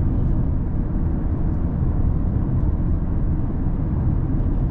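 Steady low rumble of a car driving along the road, engine and tyre noise, with a few faint ticks.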